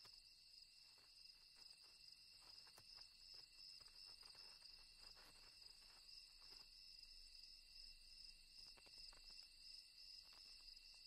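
Faint night chorus of crickets: a steady high-pitched trill held at several pitches, with faint scattered ticks and scratches.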